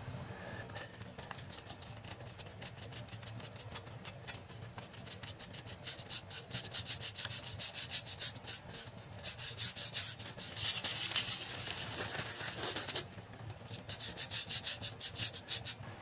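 Grease being scraped by hand off the steel rear axle shaft of a 1977 Ford F250: rapid back-and-forth scraping strokes, several a second. About two-thirds of the way through there is one longer, unbroken scrape of a couple of seconds.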